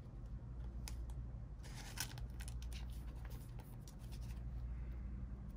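Baseball trading cards being handled and slid into place, making light scraping and small clicks over a low steady hum.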